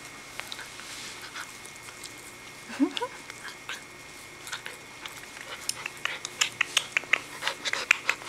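White puppy play-biting a person's hand, with one short rising yip about three seconds in. Quick sharp clicks and snaps come thick through the second half as it mouths and nips.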